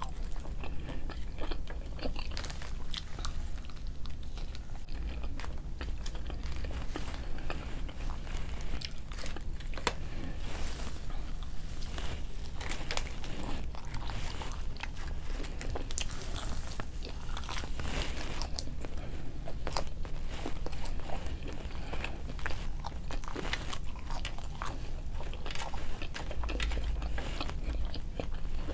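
A person eating McDonald's food close to the microphone: repeated biting and chewing, with many small crunchy clicks throughout.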